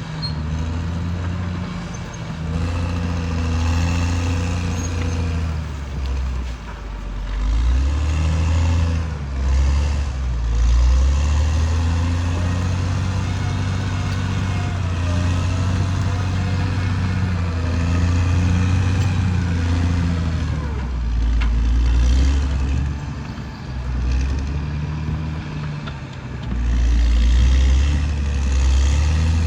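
Caterpillar D6R XL bulldozer's diesel engine working under load, its pitch and level rising and falling every few seconds as the load changes.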